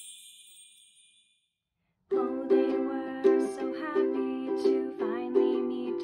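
A high bell-like shimmer fades away over the first second or so. After a brief silence, a Kala ukulele starts being strummed about two seconds in, playing chords in a steady rhythm.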